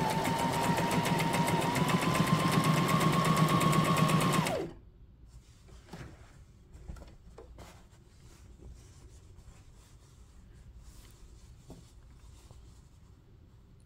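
Brother SM2700 sewing machine stitching at a steady speed, its motor whine running with rapid needle strokes, then winding down and stopping about four and a half seconds in. Faint clicks and fabric rustling follow as the sewn piece is handled and lifted out.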